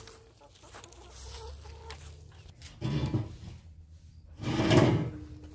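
Domestic hens clucking, with two louder calls, one about three seconds in and a stronger one just before the end.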